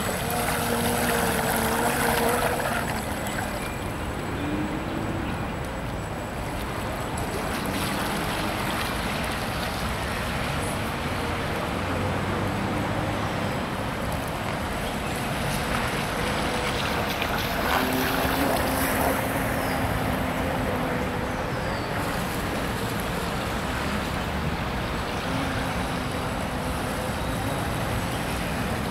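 Small electric outrunner motor of a radio-controlled PT50 hydrofoil boat model running, a faint whine that comes and goes over a steady outdoor noise of water and wind.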